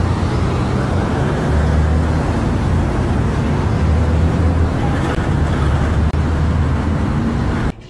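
Loud, steady highway traffic noise with a low engine rumble; it cuts off abruptly near the end.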